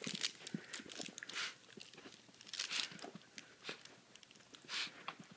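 A dachshund biting and tugging on a fabric chew toy: scattered crunching bites and rustling of the cloth, with a few louder rustles about a second and a half in, near three seconds and near five seconds.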